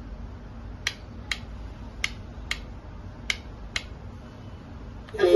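Six sharp clicks, unevenly spaced about half a second to three-quarters of a second apart: switches being flicked on an RC radio transmitter while the truck's lights are switched on.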